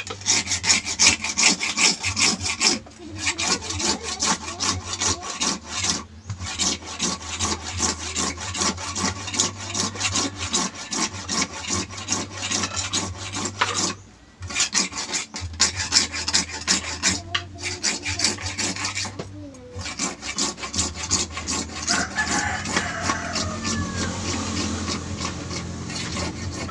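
Hacksaw cutting into an orange PVC pipe scabbard, with fast rasping back-and-forth strokes. The strokes stop briefly three or four times before carrying on.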